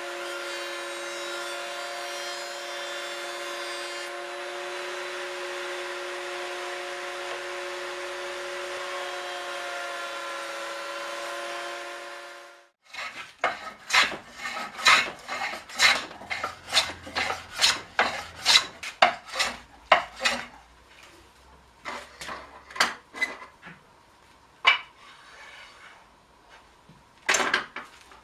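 A power tool runs at a steady pitch with a whine, then stops abruptly about halfway in. Then a hand tool works a piece of wood in quick, irregular scraping strokes with short pauses between runs.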